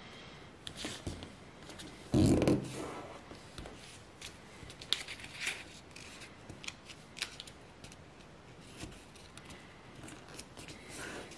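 A square of origami paper rustling and crinkling as hands fold and crease it against a cutting mat, in scattered short crackles. A louder thump comes about two seconds in.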